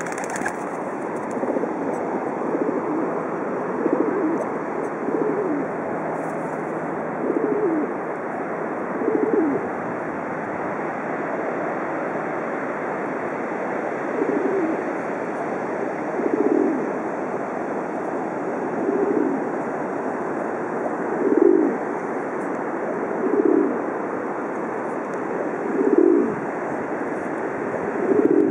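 White rock doves (domestic pigeons) cooing, a short low coo about every two seconds with a pause of a few seconds in the middle, over a steady wash of background noise.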